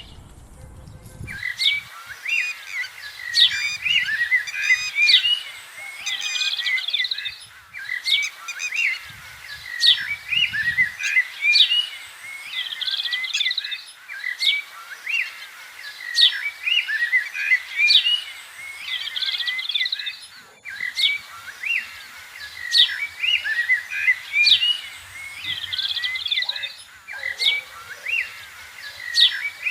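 Birds chirping and singing in a busy chorus of short, sharp, repeated calls, starting about a second in.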